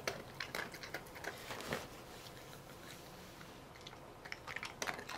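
A border collie crunching and chewing small dog biscuits: a run of quick crunches in the first couple of seconds, a short lull, then more crunching near the end.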